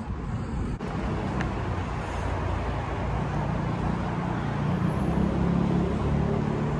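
Steady road traffic noise: a continuous rumble of passing cars.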